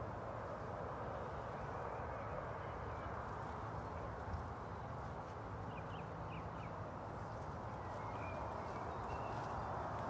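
Steady outdoor background noise with a few faint, short, high bird chirps in quick succession about six seconds in and again a little later.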